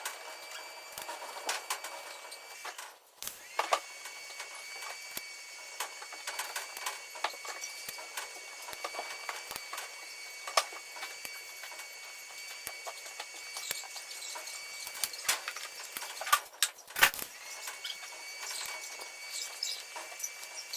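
TIG welding arc on stainless steel exhaust pipe: a steady thin whine with scattered clicks. The arc breaks off and restarts twice, with louder knocks around those breaks.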